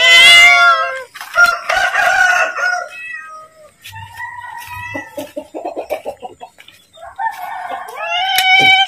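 Domestic cat meowing loudly and repeatedly, several drawn-out calls, begging to be fed.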